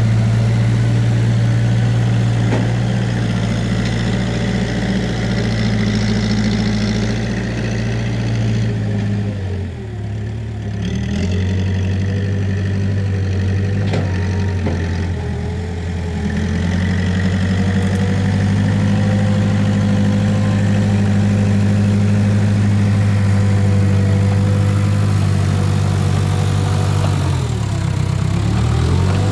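Case 580K backhoe loader's diesel engine running steadily, its engine speed sagging briefly and recovering twice, about ten seconds in and again near the end.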